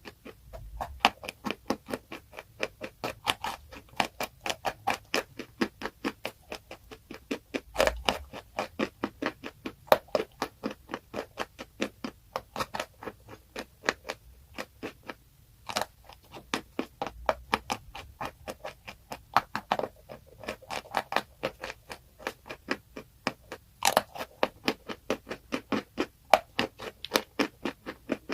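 Close-miked crunching of something crisp being bitten and chewed: a rapid, unbroken run of sharp crunches about four a second, with a few louder snaps now and then.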